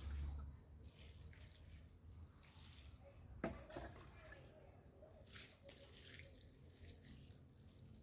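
Faint trickling and splashing of liquid as a long-handled dipper scoops from a metal bucket and pours out onto the ground, with one sharp knock about three and a half seconds in.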